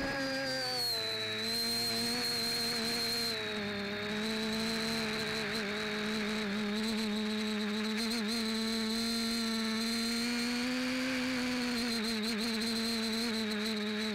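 FPV quadcopter's electric motors and propellers whining steadily, heard from on board the craft; the pitch wavers slightly as the throttle shifts.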